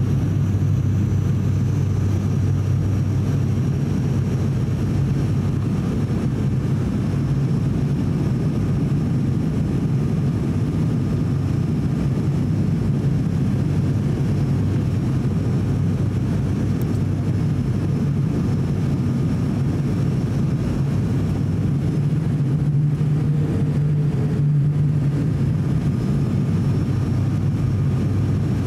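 Cabin drone of an ATR 42-600's turboprop engines and propellers on final approach: a steady low hum with a faint high whine, swelling slightly late on as the power changes.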